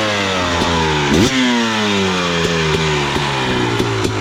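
Dirt bike engine running under way, its pitch jumping up sharply about a second in, then falling slowly as the revs drop.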